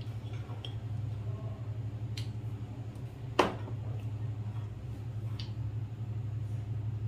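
A steady low hum, with a few faint ticks and one sharp tap about three and a half seconds in, as a spoonful of ground spice is tipped onto minced meat in a bowl.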